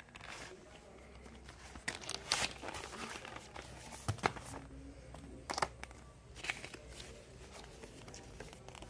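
Cardboard box and card-and-plastic packaging being handled and pulled apart: intermittent rustling and crinkling with a few sharp clicks and snaps.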